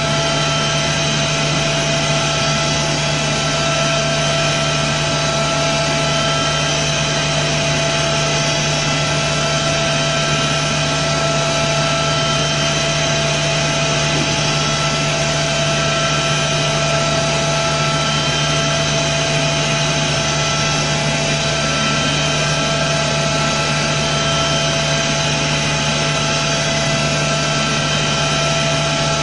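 Okuma MU-500 five-axis vertical machining center milling a metal ring-shaped part with an end mill. The spindle and cutting give a steady whine with several held tones over a steady mechanical noise.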